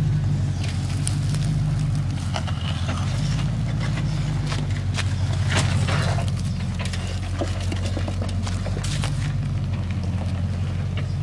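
Land Rover Discovery engine running steadily as the 4x4 crawls over rock ledges, with scattered clicks and knocks from the tyres and running gear on the rock.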